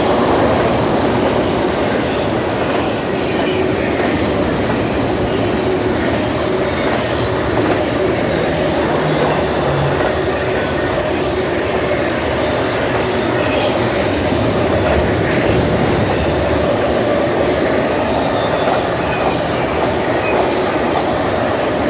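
Cars of a westbound BNSF freight train rolling past: a steady, continuous clatter of steel wheels on rail.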